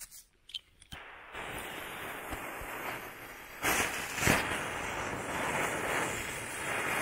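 A jet lighter clicks a few times at the fuse of a small ground firework. About a second in the firework catches and burns with a steady hissing spray, swelling louder around the middle with two sharper bursts.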